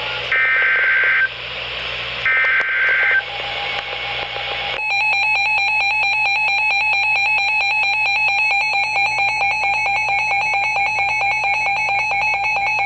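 Emergency Alert System header on NOAA Weather Radio: two harsh, buzzy digital data bursts about a second long, with radio hiss between them. They are followed by the alert tone, which becomes a loud, rapidly pulsing electronic beep about five seconds in and runs on. Together they signal that a warning broadcast is about to begin.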